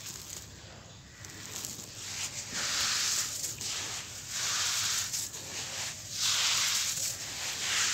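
Hands digging into and crumbling a gritty sand-and-cement mix, making a crunchy, grainy rustle. It is faint at first, then swells in several louder waves from about two and a half seconds in.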